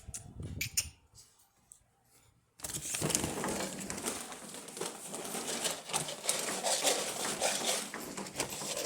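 Rustling and crinkling of a dog-food bag being opened and dug into, starting suddenly about two and a half seconds in after a short quiet stretch.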